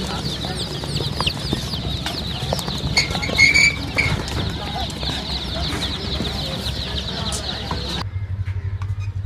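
A crowd of day-old chicks cheeping in cardboard transport boxes: many high, quick peeps overlapping without a break, with one louder, lower call about three and a half seconds in. Near the end the cheeping cuts off abruptly, leaving a steady low hum.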